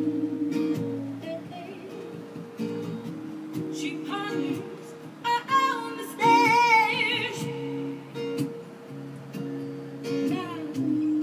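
Guitar playing held notes and chords, with a wavering higher pitched line coming in around the middle.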